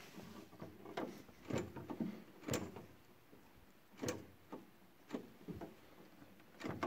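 Irregular footsteps and scuffs on icy, gritty ground, about one a second, with a boot stepping onto the tractor's footplate near the end.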